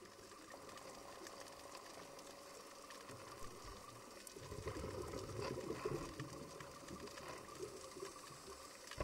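Faint underwater bubbling and hiss with light crackling, swelling about halfway through.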